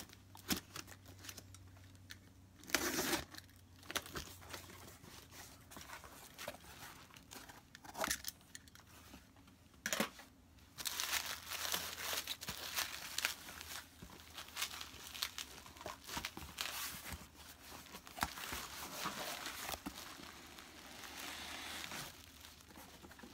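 A cardboard shipping box being unpacked by hand: packing tape cut and torn off, cardboard flaps rustling, then plastic bubble wrap crinkling as it is pulled out. The sound is irregular, with a sharp tear a few seconds in and longer stretches of crinkling later.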